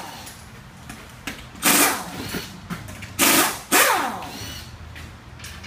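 Air impact wrench working the lug nuts of a car wheel: three short bursts, each winding down in pitch as the trigger is let go.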